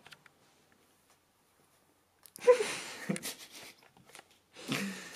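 Near silence, then about two and a half seconds in a sudden breathy burst of a voice, a short exclamation or laugh that trails off, and a second breathy burst near the end.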